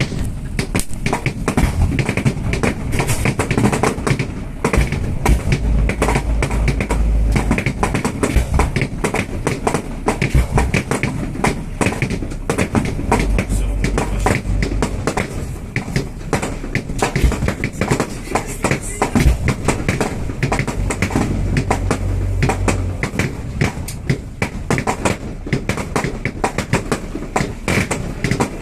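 Fireworks display heard close to the launch site: a continuous barrage of rapid bangs and crackling, with deeper booms rumbling in now and then.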